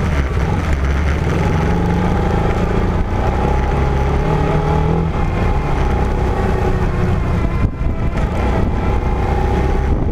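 A vehicle's engine running under load while driving an off-road trail, its pitch rising and falling every few seconds as the throttle changes, over a steady rumble.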